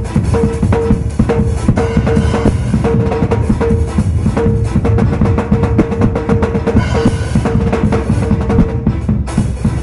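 Acoustic drum kit played fast, with dense strokes on kick, snare and toms and cymbal crashes about two and seven seconds in.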